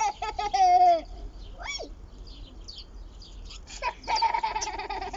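A small child's high-pitched squealing laughter, once in the first second and again for the last second or so, with birds chirping in between.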